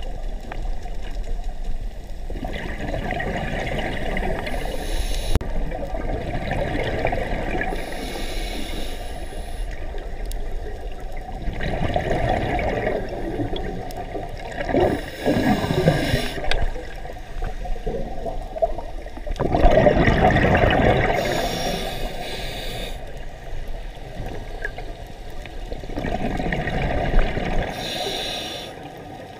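Scuba diver breathing through a regulator underwater, picked up by a GoPro in its waterproof housing. Exhaled bubbles come as a rushing burble every several seconds, with short hissing inhalations in between.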